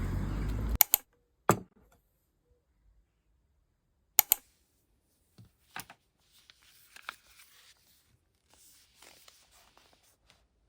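A steady low outdoor rumble cuts off about a second in, followed by a few sharp clicks and taps of small objects being handled in a quiet room, then faint scattered taps and soft rustling.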